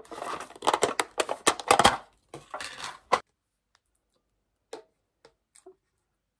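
A rapid run of crackling clicks and rustles for about three seconds, then only a few faint ticks.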